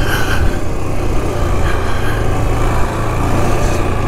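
Yamaha Grizzly 450 ATV's single-cylinder four-stroke engine running steadily under load as it climbs a hill, with a few brief knocks from the ride.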